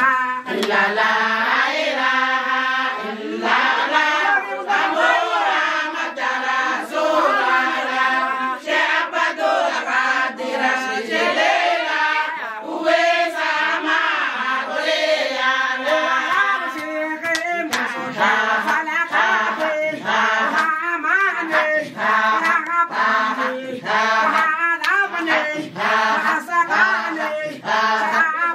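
A group of voices singing a chant together, call-and-response style, over a steady rhythm of sharp strikes such as hand claps or a drum.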